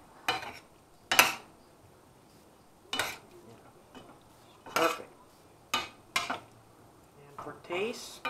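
Spatula scraping and clanking against a stainless steel pan as a pork and vegetable stir fry is stirred, in separate sharp strokes about every second or two.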